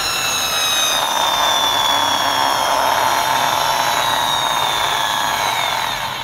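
A small toy vehicle's drive whirring at high speed: a steady, loud mechanical whine that sags slowly in pitch and fades near the end.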